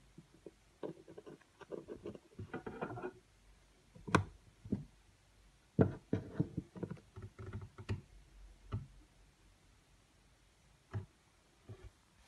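Irregular clicks, knocks and scratchy rustling as a wooden stick and hands work against a plastic tarantula enclosure and the web inside it. Sharp taps stand out about 4, 6, 8 and 11 seconds in.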